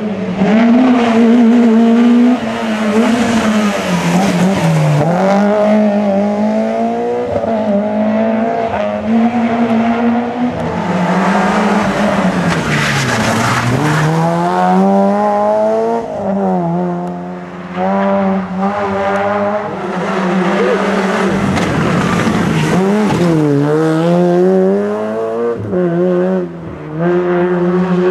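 Rally car engines revving hard through a stage, the note held high then dropping sharply several times as the revs fall and climbing again as the cars accelerate away.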